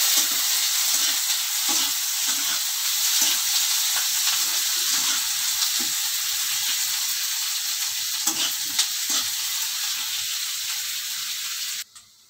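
Sliced onions and whole spices sizzling steadily in hot oil in a metal kadhai, with a spatula stirring and scraping the pan at irregular moments. The sizzle cuts off abruptly near the end.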